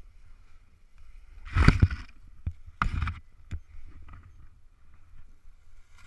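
Strong wind buffeting the camera microphone as a low rumble, with two loud rushing gusts of noise about a second and a half and three seconds in, and a few sharp clicks.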